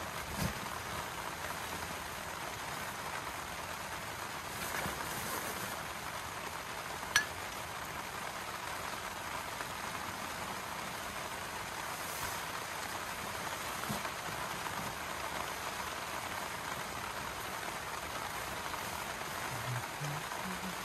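Steady rain falling, an even hiss of drops, with one sharp click about seven seconds in.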